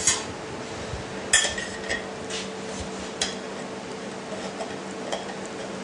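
Metal kitchen tongs clinking against a metal pan while lifting and twirling cooked pasta: several sharp clinks, the loudest about a second and a half in with a brief ring. A steady hum runs underneath.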